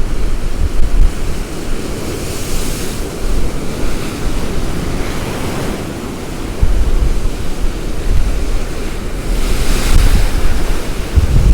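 Storm waves breaking and washing in on the North Sea, with strong wind buffeting the microphone. The hiss of the surf swells up twice, about two seconds in and again near the end.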